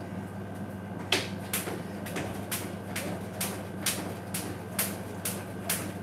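Jump rope slapping a tile floor with each skip in a steady rhythm, about two strikes a second, starting about a second in.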